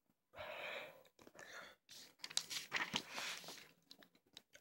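Paper rustling as the pages of a CD booklet are handled and turned, in three bursts of rustle with small clicks.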